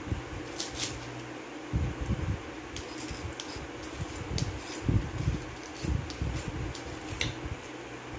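A metal spoon clicking and scraping in a plastic yogurt cup, with a few soft low knocks of eating, over a steady background hum.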